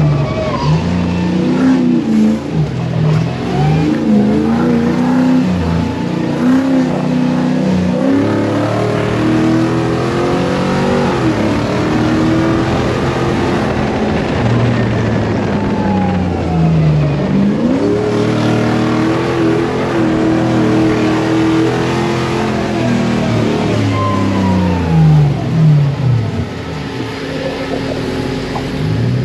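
Off-road buggy engine revving hard, its pitch climbing and dropping again and again as the driver accelerates, lifts off and shifts, with the rumble of tyres on a gravel track underneath. The revs fall away sharply around twelve seconds in, again a few seconds later, and right at the end.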